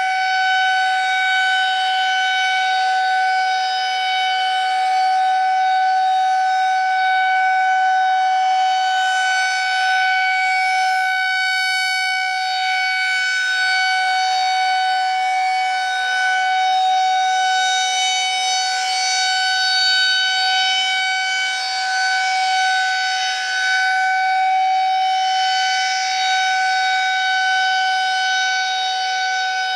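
Federal Signal 2001-130 rotating outdoor tornado warning siren sounding a steady tone, its pitch holding level while it swells and fades slowly as the siren rotates.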